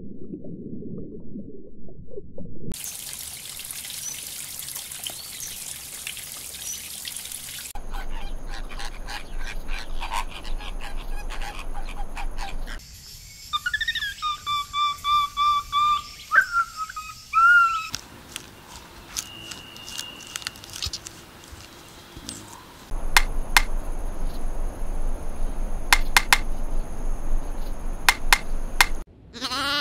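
A run of separate animal scenes. A small monkey gives a series of whistled calls near the middle. Later a pileated woodpecker pecks at tree bark with sharp, irregular knocks, and a goat starts to bleat at the very end. Earlier there is a low rumble and then a hissing, water-like wash.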